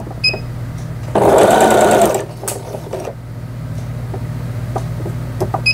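Janome Memory Craft 5000 computerized sewing machine sewing a triple stitch in short runs, loudest for about a second early on, then a shorter run, over a steady low hum. A short beep sounds near the start and another at the end.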